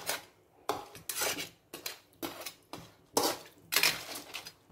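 A spatula scraping and clacking against a metal pan as crab pieces in gravy are stirred: a run of short strokes, roughly two a second.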